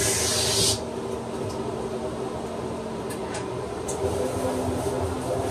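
Water hissing from a hand-held rinse hose sprayed over a dog in a stainless-steel grooming tub, cutting off under a second in. A steady machine hum goes on underneath, with a few faint clicks.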